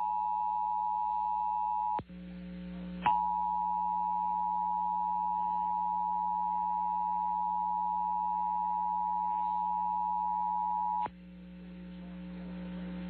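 Emergency Alert System two-tone attention signal, two steady tones sounded together over a low hum, heralding a Child Abduction Emergency (Amber Alert). The tone breaks off about two seconds in, resumes a second later and stops about eleven seconds in, leaving only the hum.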